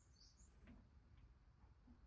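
Near silence with a small bird's faint chirps: two or three short, high notes that rise and fall, in the first moment. A couple of soft ticks follow.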